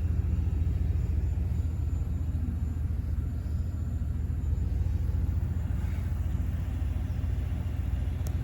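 A vehicle engine running steadily: an even, low rumble with no change in speed.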